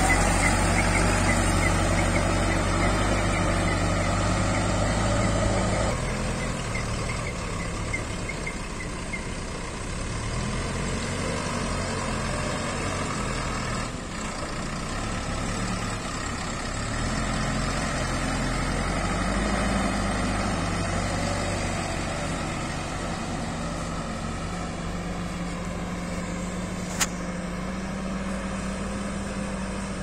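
Bull backhoe loader's diesel engine running as the machine drives and works, its pitch rising and falling and then holding steady near the end. A single sharp click near the end.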